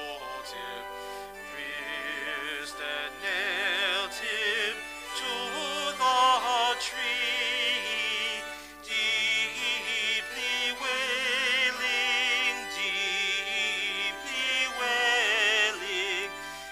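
A hymn sung with a strong vibrato over held accompanying notes.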